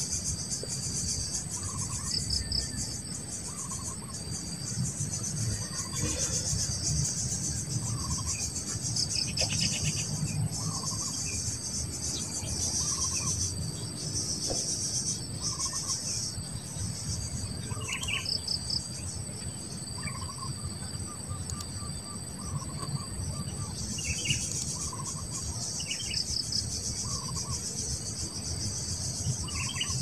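Steady, high-pitched drone of an insect chorus with a fine pulsing texture. Over it come short bird chirps about every two seconds, with a low rumble underneath.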